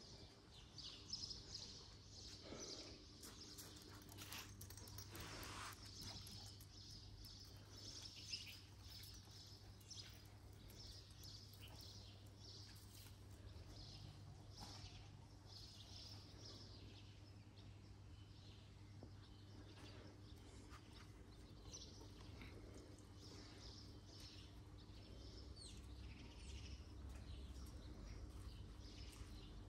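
Near silence: faint outdoor ambience with scattered small bird chirps over a low steady hum.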